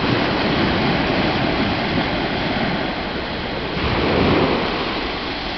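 Sea surf washing onto the beach, mixed with wind rumbling on the microphone; a wave swells louder about four seconds in.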